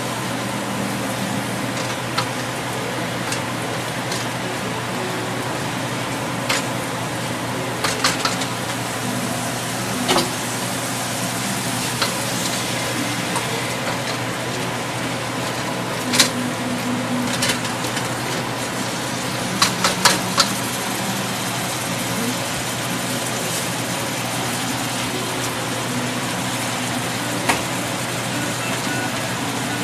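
Shrimp and scallops sizzling in oil in a carbon-steel wok, a steady hiss with a low hum beneath. Occasional sharp clicks and knocks come as the seafood is stirred and mussels go into the pan.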